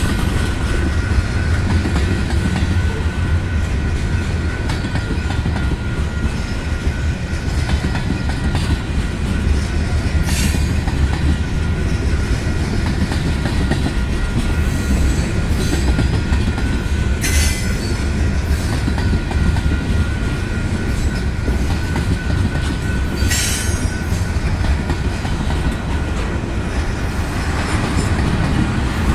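Freight train's tank cars and covered hoppers rolling past close by: a steady heavy rumble of steel wheels on rail, with a faint steady high whine throughout. Three brief sharp, high-pitched noises come several seconds apart, about a third of the way in, past the middle, and near three quarters through.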